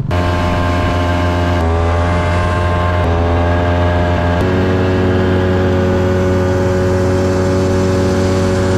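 2003 Ski-Doo Tundra R snowmobile's two-stroke engine running steadily under way. Its pitch shifts slightly a few times in the first half, then holds steady.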